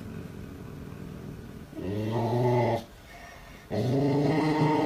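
A golden retriever growling at another dog in two long, low growls: one about two seconds in, and a second starting near the end.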